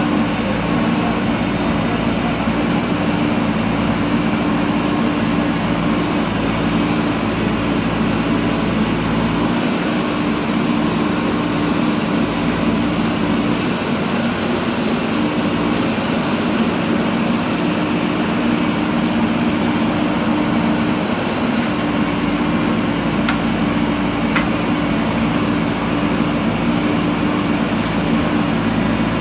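Diesel engine of a JCB 3DX backhoe loader running steadily under load while it digs, its pitch shifting slightly as the load changes.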